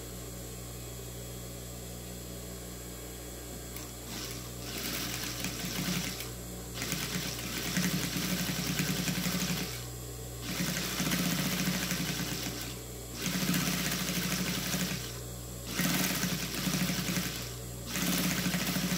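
Industrial sewing machine stitching in six runs of one to three seconds each, stopping briefly between them. A low steady hum comes before the first run.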